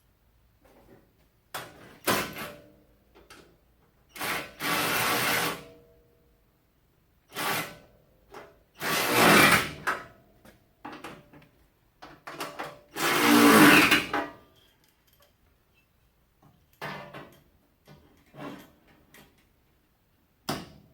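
Power drill running bolts in to hold a new inner fender apron in place, in several short bursts of one to two seconds with pauses between them.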